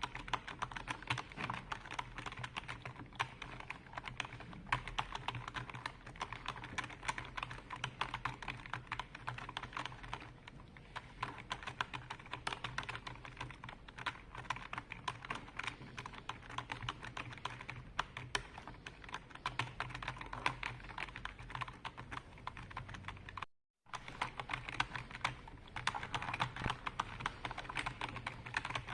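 Computer keyboard being typed on continuously, a dense run of rapid key clicks. The sound cuts out completely for a moment about two-thirds through, then resumes.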